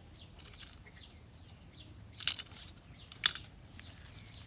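Faint birds chirping in a steady run of short, falling calls, with two short sharp clacks about a second apart near the middle.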